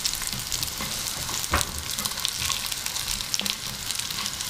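Breaded chicken nuggets sizzling in shallow oil in a frying pan, a steady hiss full of small pops. A wooden spatula scrapes and knocks against the pan as they are turned, with one sharper knock about one and a half seconds in.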